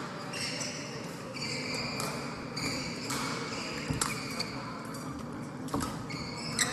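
Badminton rally: rackets striking the shuttlecock with sharp cracks, several times, mixed with shoes squeaking on the court floor and quick footsteps, echoing in a large sports hall.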